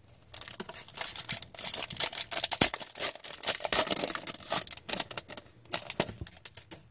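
Trading cards being handled and shuffled, with dense, irregular crackling and clicking, busiest in the middle and thinning out near the end.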